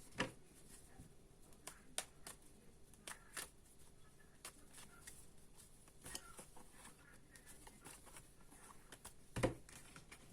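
Tarot cards being handled and laid out on a table: scattered soft taps and slaps, the loudest near the end.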